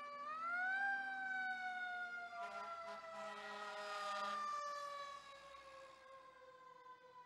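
Fire truck siren winding up sharply, then slowly winding down in pitch, the long coast-down of a mechanical siren. Steady horn blasts sound over it for the first four seconds or so.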